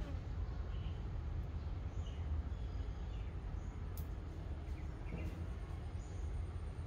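Steady low rumble of background noise, with faint short bird chirps every second or so.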